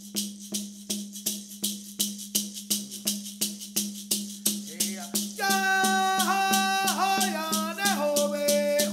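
Rattle shaken in a fast, even beat, about four strokes a second, over a steady low hum. About five seconds in, singing of the Women's Dance song joins the rattle.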